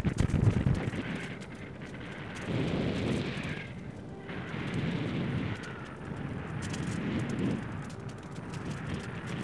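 Wind buffeting the microphone: low rumbling gusts, loudest at the very start, then swelling and fading every couple of seconds.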